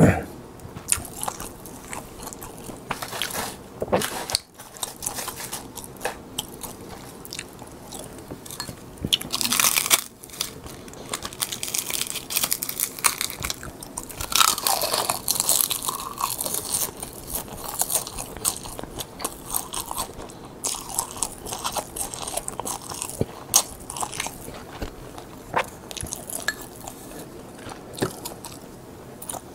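Close-miked eating sounds: crisp seasoned laver (gim) crackling and crunching between the teeth, with chewing. The crackling comes in short, irregular clicks, thickest about a third to halfway through.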